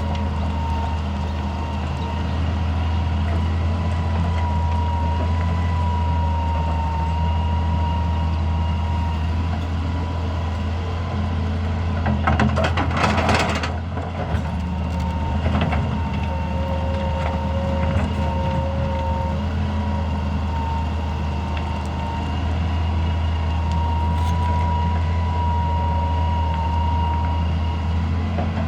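Hitachi EX200 excavator working: its diesel engine runs steadily, with a high whine over it that wavers in pitch. About halfway through there is a brief rush of noise.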